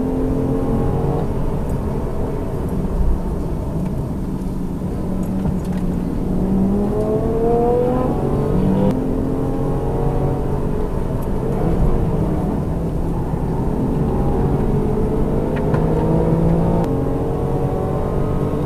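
Car engine under hard acceleration and lifting off on a track lap, its note rising and falling through the gears.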